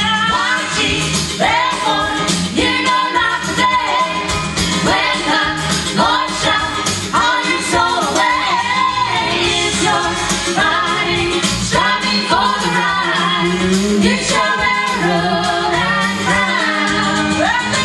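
Gospel vocal group singing live with instrumental accompaniment.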